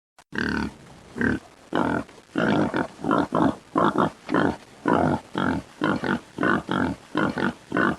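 Domestic pig grunting in a rapid series of short grunts, about two a second.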